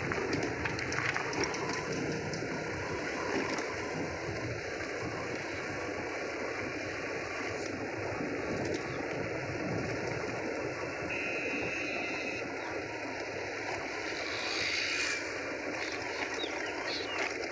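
A vehicle's engine running as it moves steadily along a rough country road, mixed with wind and road noise.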